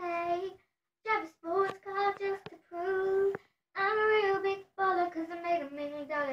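A young girl singing unaccompanied, in phrases of held notes broken by short pauses.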